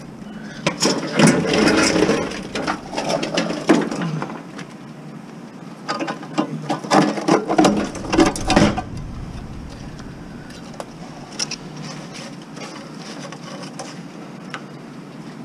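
Scrap metal being handled and pulled about, clanking and rattling in two bursts: one about half a second in lasting some three seconds, another from about six to nearly nine seconds in.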